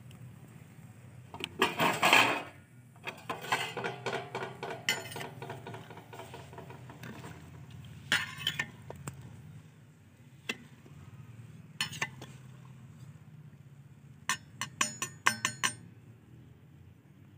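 Metal skimmer stirring sugar into water in a large steel pot, scraping and clinking against the pot's sides as the sugar is dissolved for syrup. A loud clatter comes about two seconds in, then a busy run of clinks and scrapes, scattered single knocks, and a quick run of taps near the end.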